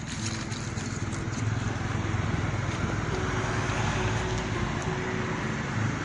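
Motor vehicle engine and road noise, a steady low hum that grows louder about two seconds in.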